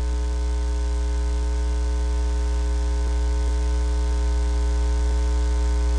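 Steady electrical mains hum with a buzz of many overtones and a hiss over it, picked up by a microphone in place of any voice: a ground-loop or connection fault in the streaming mic's audio line.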